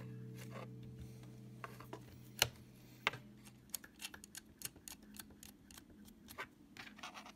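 Irregular light clicks and taps of metal parts being handled as an adjustable bag rider is worked into place under a rifle buttstock, the sharpest about two and a half and three seconds in. Background music fades out over the first few seconds.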